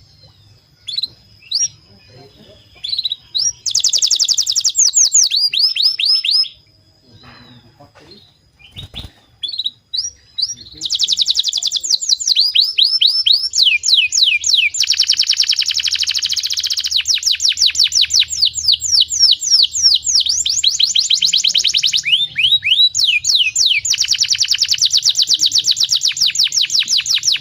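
Domestic canary singing: scattered short notes at first, then long, rapid rolling trills of repeated downward-sweeping notes. A short quieter pause comes a few seconds in, and after it the trills run almost without a break.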